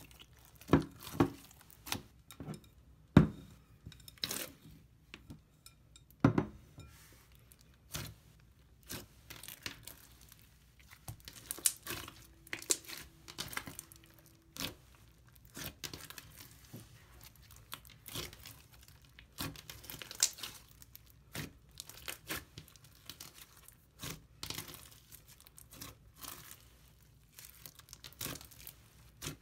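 Hands squishing, pressing and stretching a thick pink slime with foam beads mixed in. It gives irregular sticky pops, crackles and tearing sounds.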